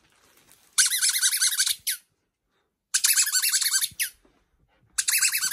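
Squeaky rubber toy ball squeezed repeatedly: three loud bursts of rapid, high squeaks, each about a second long, with short pauses between.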